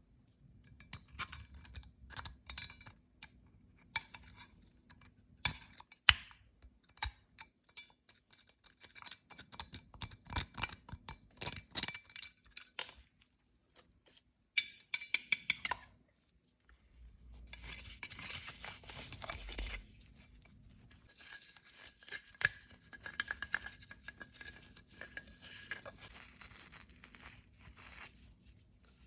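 Metal parts of an old bronze censer being handled: a series of clinks and knocks, some with a short metallic ring, one sharper knock about six seconds in, then stretches of scraping and rubbing.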